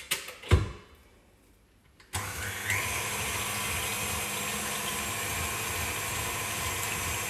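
A KitchenAid tilt-head stand mixer's motor switches on about two seconds in and runs steadily, its wire whisk beating cream. Before that come a few clicks and a knock as the mixer head is lowered into place.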